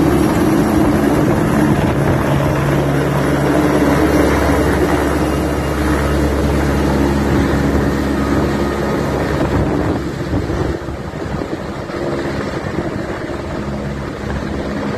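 Rescue helicopter flying overhead: steady rotor and engine noise. It drops somewhat about ten seconds in as the helicopter moves farther off.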